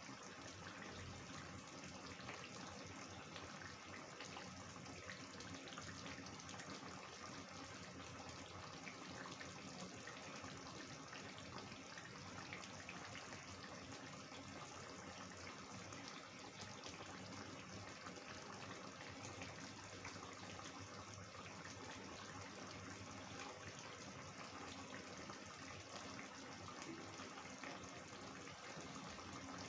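Chicken curry gravy simmering in an aluminium kadai, bubbling and popping steadily.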